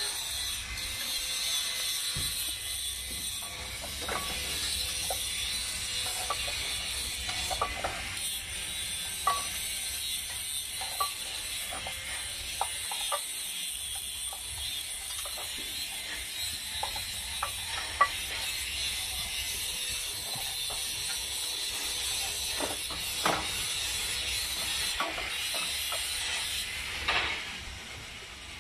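Scattered metallic clicks and taps from hand tools working on a MAN TGS truck's clutch pressure plate as it is bolted to the flywheel, over a steady hiss.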